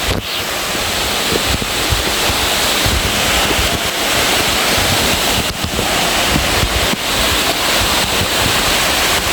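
Hareshaw Linn waterfall rushing steadily, its noise swelling a little over the first second and then holding, with wind rumbling on the microphone.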